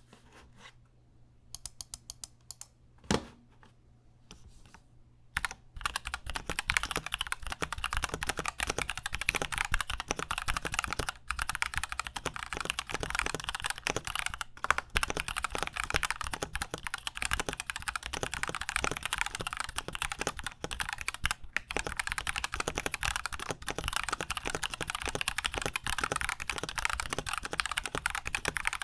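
Typing on a KBD67 Lite mechanical keyboard fitted with stock, unlubricated Gateron Milky Yellow linear switches. A few scattered keystrokes and one louder knock come first, then steady, continuous typing from about five seconds in.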